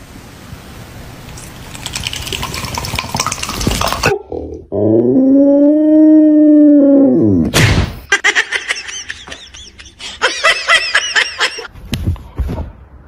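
Husky-type dog howling: one long howl that rises and falls, in the middle of the stretch. Before it comes a rising, noisy sound that stops abruptly. After it comes a run of short, high, wavering cries.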